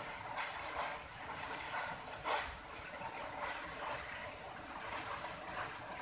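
A tall waterfall rushing steadily, a continuous hiss of falling water, with a brief louder swell about two seconds in.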